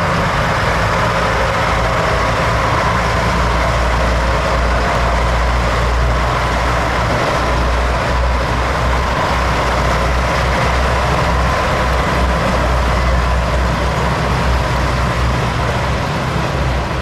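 Diesel engines of JR East KiHa 100 series railcars running, a loud, steady low drone that eases off right at the end.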